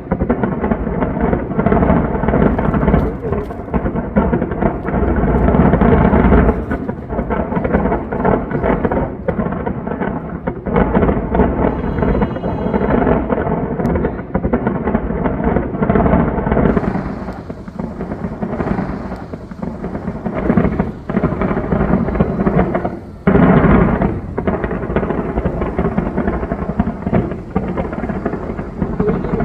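A dense fireworks barrage: continuous overlapping booms and crackles that blend into a rolling, thunder-like rumble, with a brief lull a little after the middle.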